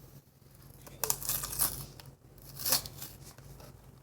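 Packaging of a boxed toy surprise egg being torn open by hand: a few short rips and crinkles, the strongest about a second in and another near the three-second mark.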